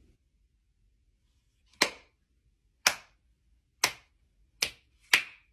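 One person's slow hand clapping: five single claps, the first about two seconds in, about a second apart at first and coming steadily faster.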